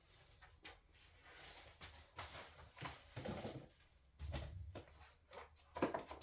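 Faint handling noises: a scattering of light clicks, rustles and knocks as small objects are picked up and set down, with a soft thump about four seconds in.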